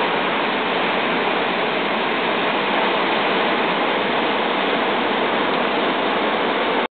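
Ocean surf: waves breaking into whitewater, heard as a steady, even rushing that cuts off suddenly at the very end.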